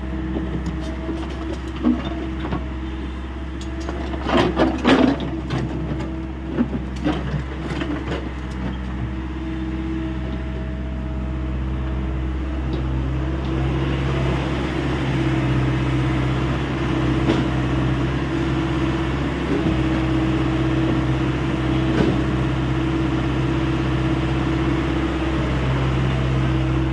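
Diesel engine of a Hyundai 85A SMART excavator running steadily, with scattered knocks and clanks over the first third. About halfway through, the engine sound grows louder and fuller as the machine works under load.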